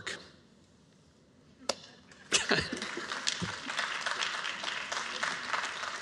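Audience applauding: after a short hush, the clapping starts suddenly about two seconds in and carries on as a steady patter of many hands.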